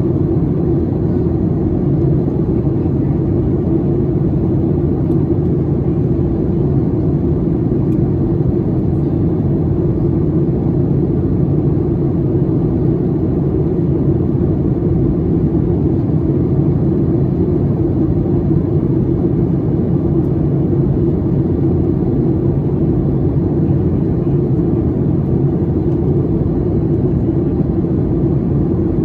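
Steady low cabin roar inside a Boeing 737 MAX 8 airliner in flight at altitude: airflow over the fuselage and the hum of its CFM LEAP-1B turbofan engines, heard from a window seat. The level holds even, with no changes.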